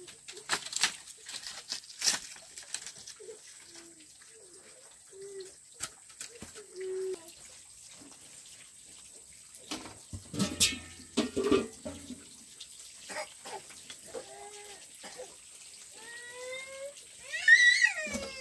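Bamboo poles and firewood knocking and clattering as they are moved, with short low calls in between. Near the end a loud wavering cry that rises and falls: a young child crying.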